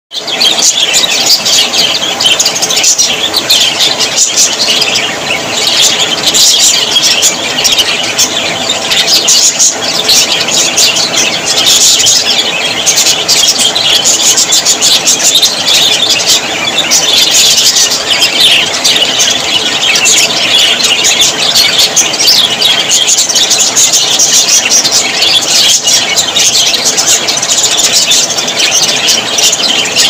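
A flock of budgerigars chattering and warbling all at once: a dense, unbroken stream of high chirps and squeaks.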